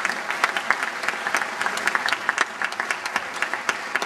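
Audience applauding: many hands clapping steadily, thinning a little toward the end.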